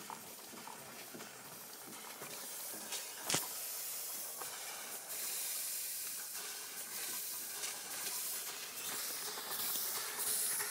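Steam hissing from a third-scale Case steam engine's boiler as it is fired up at low pressure, growing louder about two seconds in. A single sharp click about three seconds in.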